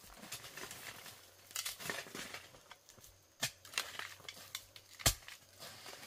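Digging tool chopping and scraping into soil: irregular knocks and scrapes of the blade in earth, roots and leaf litter, with one sharp knock about five seconds in.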